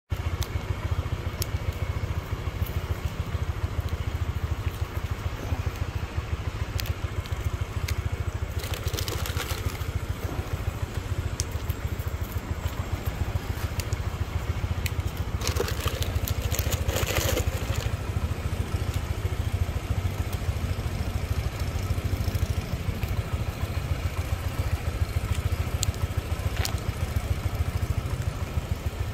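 Motorcycle engine idling steadily, with scattered light clicks and a couple of brief rustles over it, about nine and sixteen seconds in.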